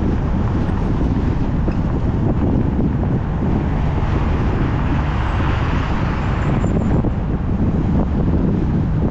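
Steady road noise from a car being driven, with a heavy low rumble of wind buffeting the microphone; a hiss swells up for a few seconds about halfway through.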